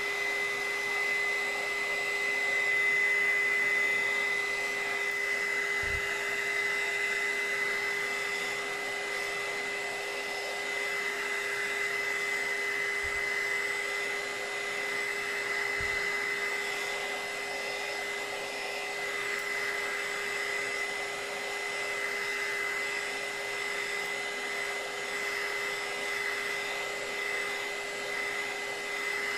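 Handheld electric heat gun running steadily, its fan blowing air with a constant whine at two pitches. A few faint knocks sound over it.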